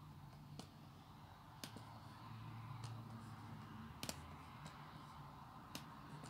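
A handful of faint, scattered clicks from a laptop's pointer being clicked, over a low steady hum.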